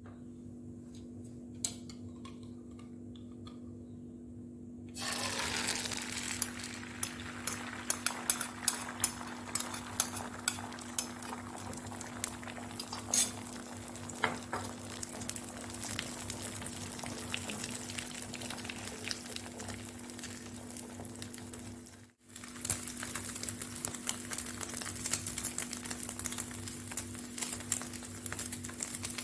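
Beaten egg mixture frying in hot oil in a frying pan: a steady sizzle dotted with sharp crackling pops, starting about five seconds in after a quieter stretch with a faint hum. It cuts out briefly near the two-thirds mark and resumes.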